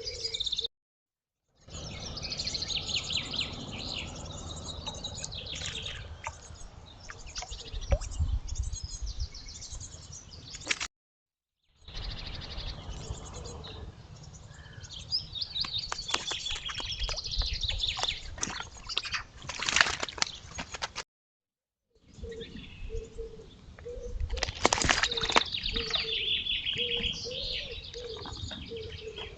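Small birds chirping and singing, with sharp clicks and a low rumbling noise underneath. The sound comes in short outdoor recordings that break off into dead silence three times.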